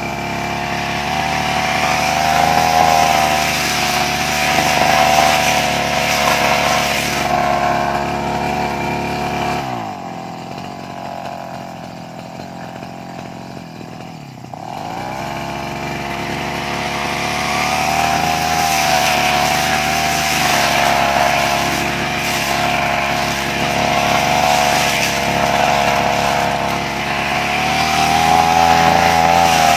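Brush cutter engine running at high revs as it cuts grass. About ten seconds in it is throttled back to a low idle, and after about four seconds it revs up again.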